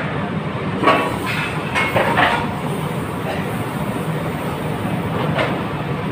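Steady kitchen noise: a constant low machine drone with a few short clatters of utensils, about a second in, twice around two seconds, and once near the end.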